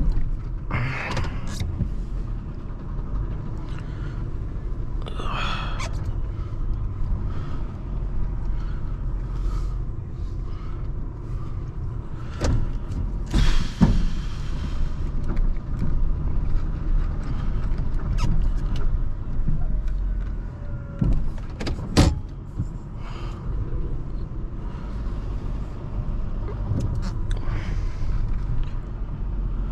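Plow truck (2009 Ford F-250) engine running steadily, with a few sharp knocks and clunks and a brief hiss about halfway through.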